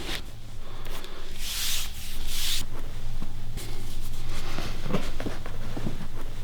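Hands rubbing and sliding over skin, with two longer strokes a couple of seconds in and a few light clicks around five seconds in, over a low steady hum.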